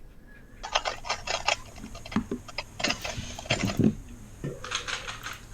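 A 3x3 speedcube being turned fast, a rapid irregular run of plastic clicks and clacks starting about a second in.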